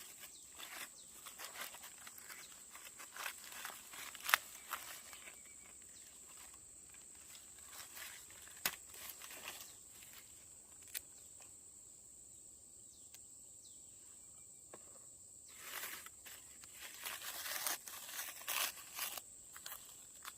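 Intermittent rustling, crinkling and light knocks of plant material being handled, with a few sharp clicks, over a steady high-pitched hiss. The handling quiets for a few seconds past the middle, then picks up again near the end.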